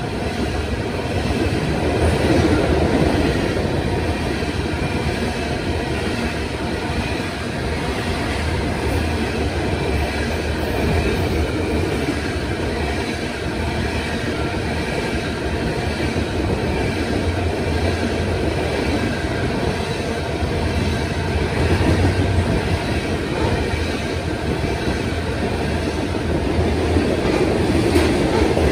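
Freight train of covered hopper cars rolling past close by: a steady rumble and clatter of steel wheels on the rails, swelling slightly now and then as cars go by.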